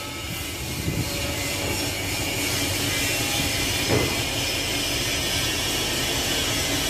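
Steady machine noise: a constant low hum with a hiss over it.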